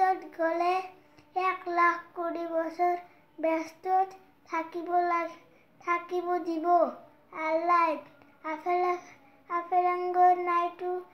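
A boy's voice chanting a waz, an Islamic sermon, in a melodic sing-song style: held notes in short phrases about a second long, broken by quick breaths.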